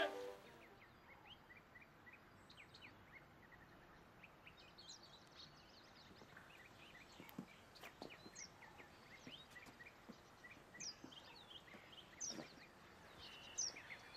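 Quiet countryside ambience with many small birds chirping and calling on and off, in short high notes scattered all through. There are a few soft knocks around the middle and near the end.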